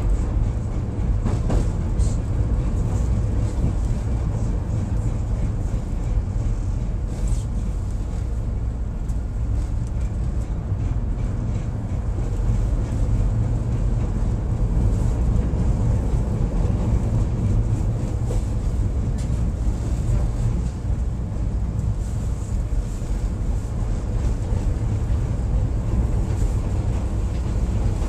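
Chicago 'L' rapid-transit train running on elevated track, heard from inside the car: a steady low rumble of wheels on rails, with a few sharp clicks as the wheels cross switches and rail joints.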